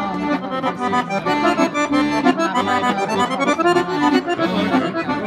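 Chromatic button accordion playing an instrumental folk melody over a steady, evenly pulsing bass accompaniment.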